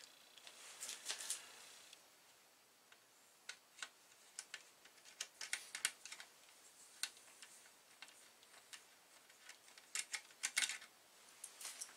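Irregular small clicks and light taps of a hand tool working on the connector hardware at the edge of a Commodore Amiga 1200 motherboard, with the board being handled. The clicks come in clusters, thickest about a second in, through the middle, and around ten seconds in.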